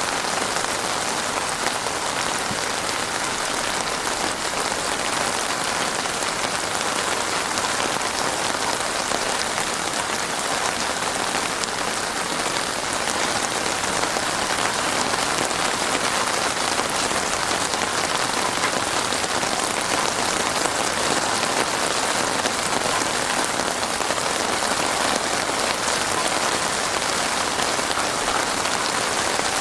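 Heavy rain falling steadily on surfaces, a dense even downpour with no breaks or thunder.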